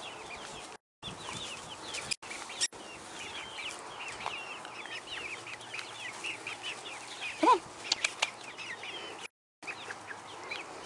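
A small flock of young chickens peeping and clucking in quick, overlapping high chirps, with one louder, lower call about seven and a half seconds in. The sound cuts out completely twice for a moment.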